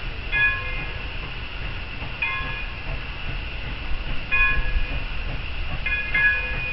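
A bell ringing in slow, regular strikes, about one every one and a half to two seconds, over a steady low rumble.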